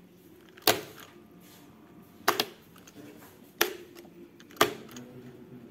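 Electrical contactors on a wired training board clacking as they switch, four sharp clacks spaced about a second to a second and a half apart.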